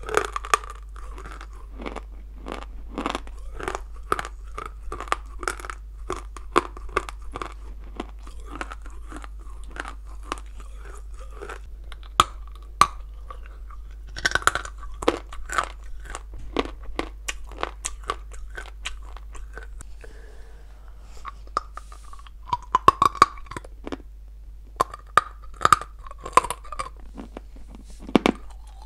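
Dry blue Ural clay being bitten and chewed: a fast run of sharp crunches. The loudest bites come about halfway through and again in the last third, with softer chewing between them.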